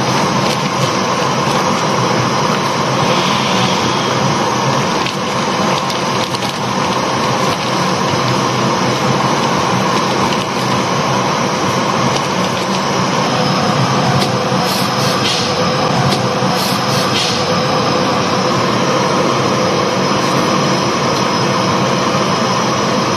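Steady rushing noise of a gas hob with pots of water at a rolling boil, with a few light clicks about two-thirds of the way through.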